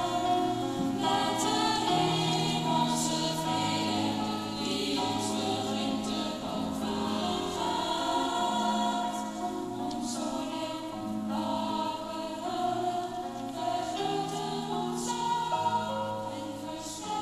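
Small choir singing in parts with piano accompaniment, holding long notes that change every second or so.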